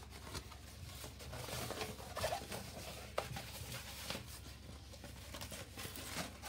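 Rustling and crinkling of a rolled diamond-painting canvas and its printed paper cover sheet as it is handled and unrolled, with small scratchy clicks and scrapes and one sharper click about three seconds in.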